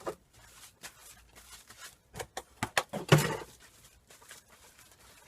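Stripped copper wire from extension flex being handled onto a weighing scale: light rustling with a string of small sharp clicks, loudest in a cluster a little past halfway.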